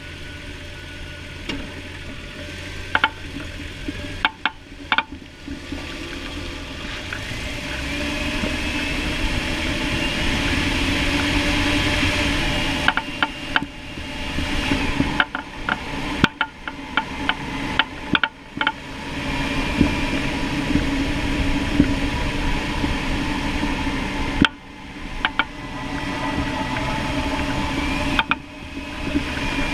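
Front end of a 1999 Jeep Cherokee clicking and knocking: many sharp, irregular clicks in clusters over a steady noise that swells and fades. The owner puts it down to a worn sway bar bushing letting the sway bar hit against the frame.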